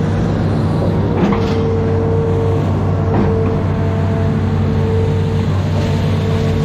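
Amphibious excavator's diesel engine running steadily under load, with a higher whine coming in about a second in while the boom and bucket work. Two short knocks as the bucket digs into the riverbank mud.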